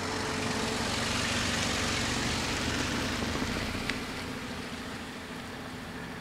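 Hyundai i30 hatchback driving up past the microphone and slowing to a stop, its engine and tyre noise swelling and then easing off after about three seconds. A single sharp click comes just before the car settles.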